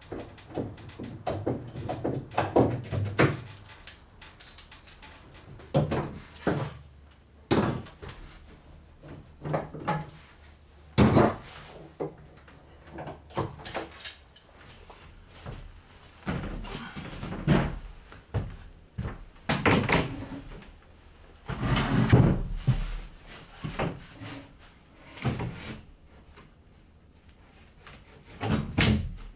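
Irregular knocks, clunks and short scraping sounds of hands-on woodworking: plywood deck panels and metal clamps being handled and set onto a wooden boat's deck framing.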